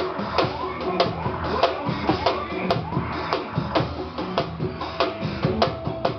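A live band playing: a drum kit hitting steadily under a melodic line that slides up and down in pitch.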